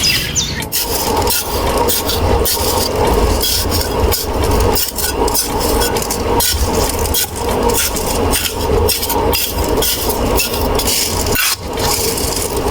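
A small motor running steadily, with rapid irregular knocks and scraping, as of a miniature DIY bulldozer at work.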